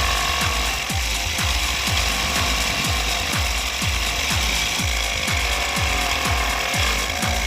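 Small 775 DC motor of a homemade drill press running steadily, its pitch wavering and dipping briefly near the end. Background music with a steady thumping beat plays throughout.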